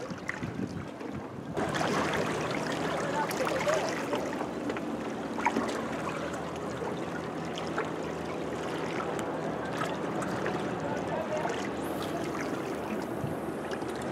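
Sea water washing and splashing against shoreline rocks, a steady wash that gets abruptly louder about a second and a half in, with a faint low hum underneath.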